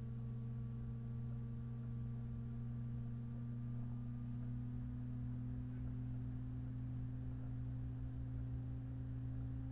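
Steady low hum with a few faint steady tones above it, one of them rising slightly in pitch about four seconds in.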